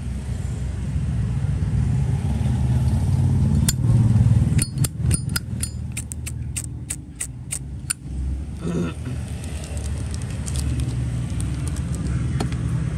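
Zippo lighter clicking: a quick run of about a dozen sharp metallic clicks over some three seconds, about halfway through. Under it runs a steady low rumble like traffic.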